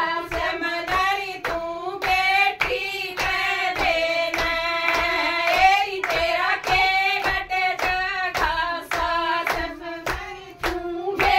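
Women singing a devotional folk song (bhajan) together, with steady rhythmic hand-clapping at about two to three claps a second.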